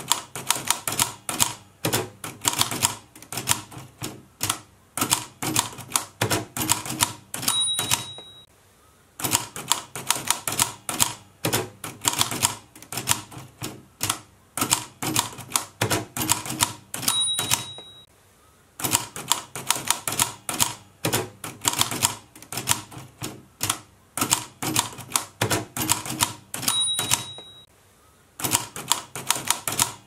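Manual typewriter typing in fast runs of clacking keystrokes. The end-of-line bell gives a short ring three times, each followed by a pause of about a second before the typing resumes.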